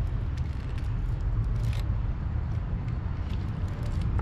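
Steady low outdoor rumble, with a few short faint crackles from a foil-wrapped burrito being bitten and chewed.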